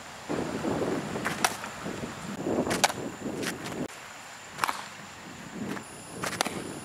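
Softball smacking into leather fielding gloves during a throwing and catching drill: four sharp pops about a second and a half apart, with softer rustling between them.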